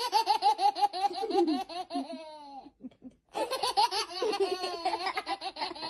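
Baby laughing in two long runs of quick, high-pitched laughs, with a short pause for breath about halfway.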